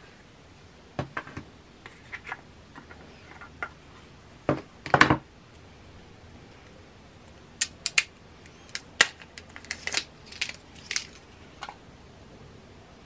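Unboxing handling sounds of an Apple Pencil and its cardboard box: a few light knocks, a louder scrape of the box and tray about five seconds in, then a string of sharp clicks and taps as the plastic pencil is handled.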